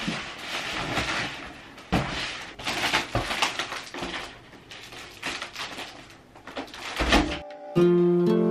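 Gold foil number balloons crinkling and rustling as they are handled, in irregular crackly bursts. Acoustic guitar music starts near the end.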